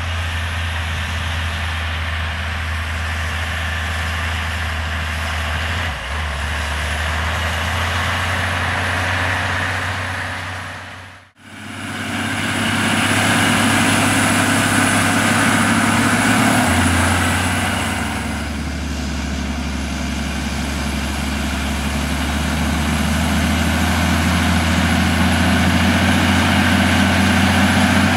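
John Deere two-track crawler tractor's large diesel engine running steadily under load while pulling a tillage implement across a field, a constant low drone with mechanical noise over it. The sound drops out briefly about eleven seconds in, then comes back.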